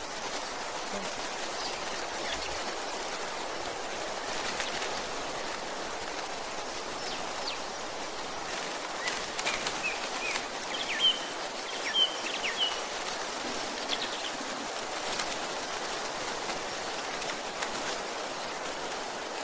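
Steady rushing outdoor background noise, with a handful of short, high bird chirps bunched in the middle.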